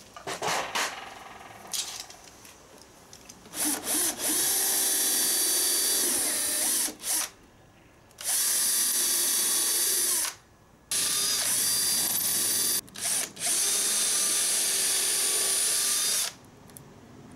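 Cordless drill boring pilot holes through the 12 mm wooden board of the upper frame. There are a couple of short blips, then three runs of several seconds each with brief pauses between.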